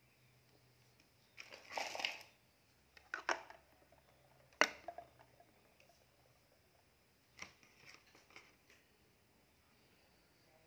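Hard plastic toy sea animals being handled in a basin of water: a short rustling clatter about two seconds in, a few light knocks, then a sharp plastic click near the middle and a fainter one later.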